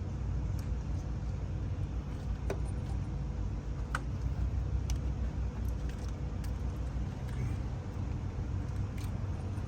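Scattered light metallic clicks and clinks of fuel injector and fuel rail parts being handled and pushed into place, over a steady low rumble.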